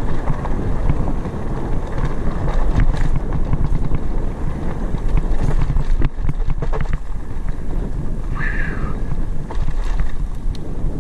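Riding noise of a RadRover electric fat bike on a dirt singletrack: heavy wind buffeting on the GoPro microphone over the rumble of the fat tyres, with scattered knocks and rattles from bumps. A brief higher squeak comes about eight and a half seconds in.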